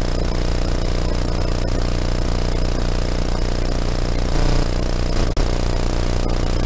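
Crashed quadcopter lying in grass with its motors still powered, giving a steady mechanical drone with rattling and scraping, swelling briefly about four and a half seconds in.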